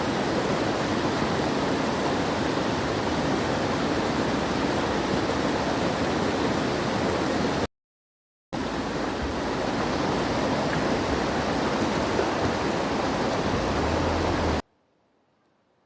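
Rushing water running loud and steady. It drops out for under a second about eight seconds in, comes back, and cuts off abruptly near the end.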